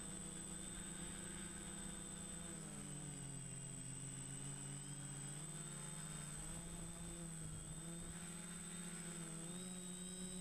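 DJI Flamewheel F450 quadcopter's four motors and propellers buzzing in flight, the pitch dipping about three seconds in, rising again a couple of seconds later and wavering near the end as the throttle changes. A thin, steady high whine sits above it.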